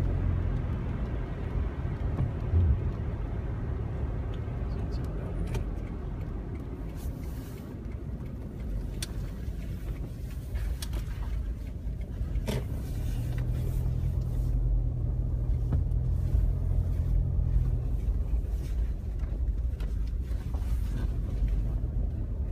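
A car's engine and tyre rumble heard from inside the cabin, steady and low, with a few faint clicks about halfway through.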